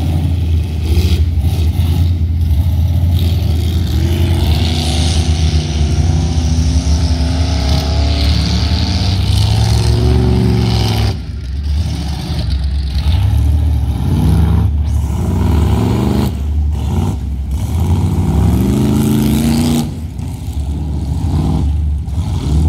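Lifted pickup truck's engine revving hard as it churns through a mud pit, with a steady low engine drone throughout. The pitch rises several times in the second half as the throttle is opened again and again.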